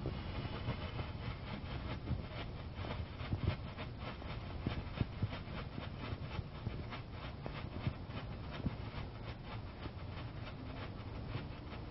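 Black Cat Flashing Signals ground firework burning: a steady rough hiss broken by quick, irregular pops and crackles, several a second.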